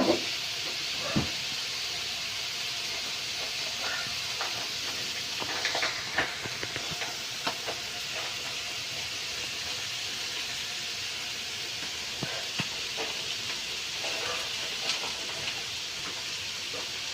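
Chicken and vegetables for chop suey sizzling steadily in a frying pan, with scattered light clicks of a utensil against the pan.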